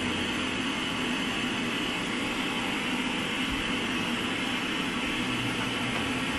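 Steady, even whooshing noise with a low hum and no change in level, like a fan or a baby's sound machine running in a bedroom.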